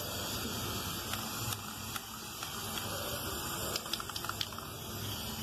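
Aerosol can of Colorgin Metallic Cobre spray paint hissing steadily while spraying, with a few faint clicks.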